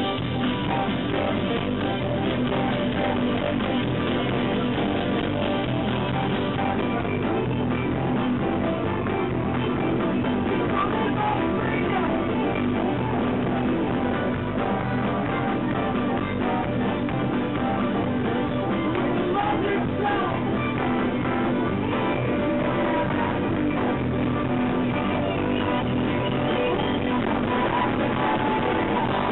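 A live band plays a rock song on fiddle, hollow-body electric guitar and acoustic guitar, steady throughout. The recording is dull, with no treble above about 4 kHz.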